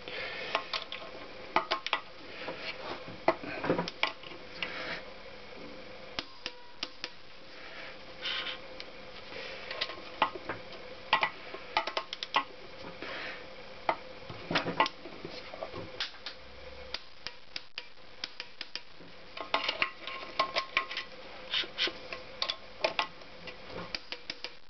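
Scattered metallic clicks, clinks and short scrapes of a wrench and socket working the connecting-rod nuts inside a Honda CX500's open aluminium crankcase, as the second rod's nuts are checked for torque.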